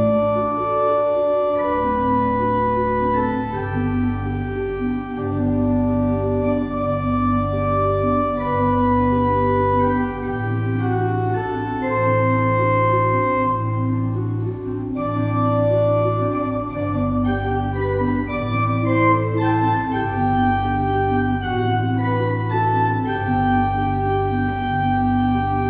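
Church pipe organ playing a slow piece in several voices, with chords and melody notes held a second or two each over sustained low bass notes.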